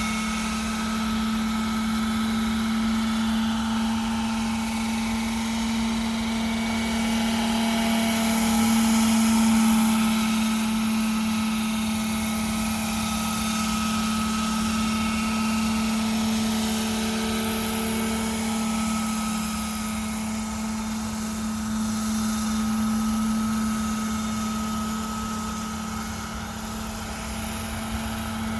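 Hirobo Dauphin scale RC helicopter in flight: its engine and rotors run at a steady, constant pitch. The sound swells a little louder about nine seconds in and eases slightly near the end.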